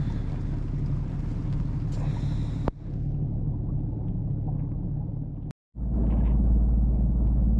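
Small boat's outboard motor running steadily under way, a low engine hum. It breaks off for an instant about five and a half seconds in and comes back as a louder, deeper rumble.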